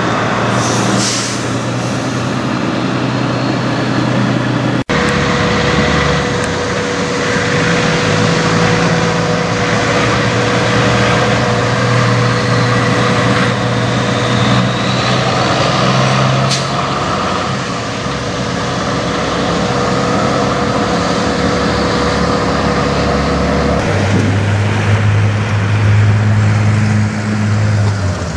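Diesel semi trucks running under load as they pull away and drive past, with a short air-brake hiss about a second in. A thin steady whine sits over the engine through the middle stretch. The sound jumps abruptly about five seconds in and again near the end, as a different pass takes over.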